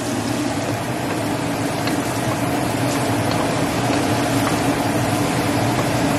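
Diced celery and onions sizzling as they sauté in oil in a pot, a steady hiss with fine crackles, over a steady low hum.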